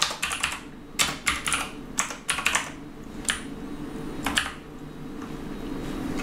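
Typing on a computer keyboard: short bursts of keystroke clicks about once a second, thinning out after about four seconds.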